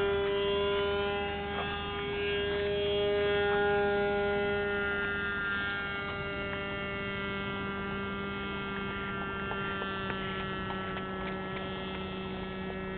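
Radio-controlled model airplane's small engine buzzing steadily in flight at one even pitch, growing fainter about five seconds in as the plane moves off.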